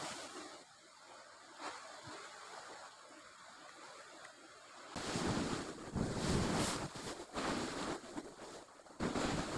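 Sea surf washing against a rocky shore, with wind gusting on the microphone; fairly quiet at first, louder and surging from about halfway through.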